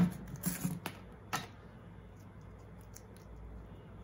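Handling noise from a drone battery strap being pulled through a carbon-fibre frame: a brief rasp at the very start, then a few light clicks and taps about half a second to a second and a half in, fading to faint small ticks.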